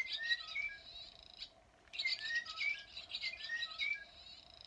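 Small birds chirping and twittering in quick high notes, in two bursts with a short pause between them.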